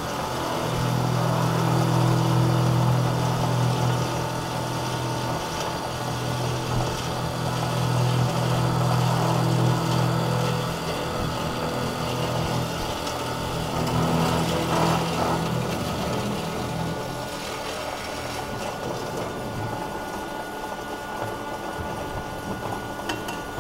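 Hydraulic automatic circular sawing machine running with a steady low hum, louder for the first ten seconds or so and again briefly about fourteen seconds in, then quieter.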